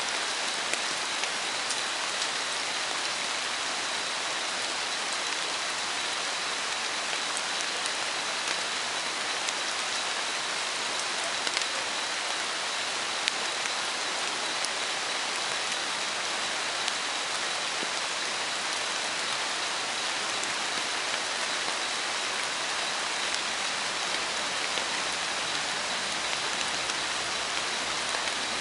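Steady forest ambience: an even hiss like rain on foliage, with a thin, unchanging high tone and scattered faint ticks.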